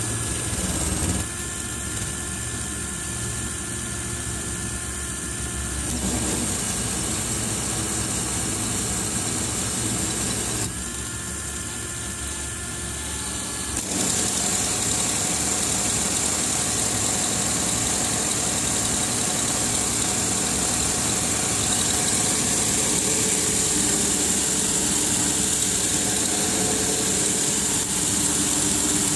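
Lego Technic V16 engine model and gearbox driven by a small electric motor, whirring steadily with its plastic gears and pistons running. The sound changes abruptly several times as the gearbox is shifted, and is a little louder from about halfway on.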